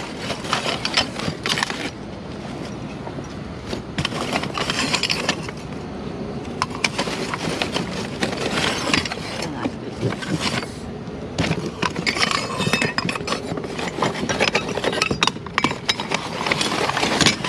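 Rummaging through discarded items: hard objects clink and knock against each other, over steady rustling and scraping of packaging.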